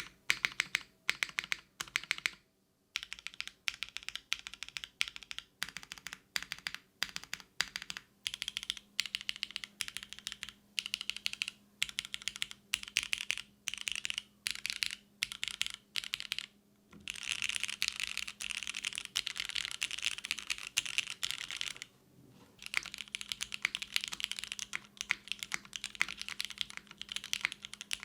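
Typing on a mechanical keyboard: a Singakbd Kohaku with a polycarbonate case, aluminium plate, lubed and spring-swapped VB Black switches and GMK doubleshot keycaps. Keystrokes come in quick runs with short pauses, and a stretch of fast continuous typing comes about two-thirds of the way through.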